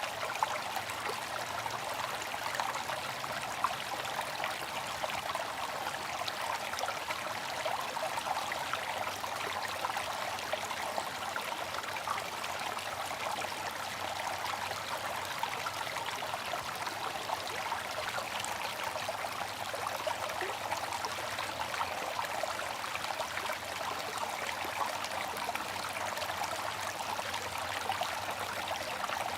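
Bamboo water fountain: water running from the spout in a steady, even trickle.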